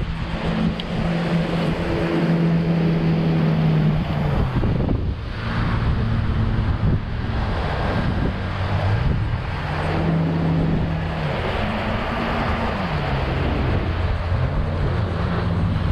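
Wind buffeting the microphone over the steady hum of a boat motor that shifts up and down in pitch several times, as its speed is changed.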